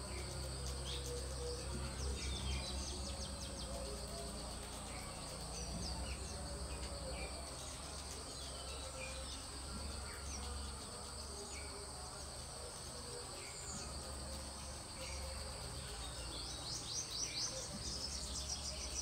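Steady high-pitched drone of insects, with scattered short bird chirps over it and a quick run of chirps near the end, above a low steady rumble.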